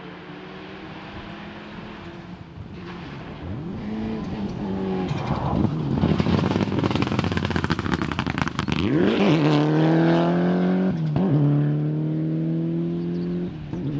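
Mitsubishi Lancer Evolution rally car driven hard on a gravel stage. The engine note builds as it approaches and is loudest as it passes, with gravel crackling under the tyres. The pitch drops at a gear change, and it then carries on at steady revs.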